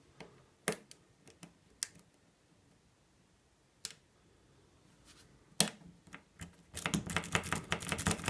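Metal lock picks clicking against a wafer lock: a few scattered single clicks, then a quick run of rattling clicks from about two-thirds of the way in.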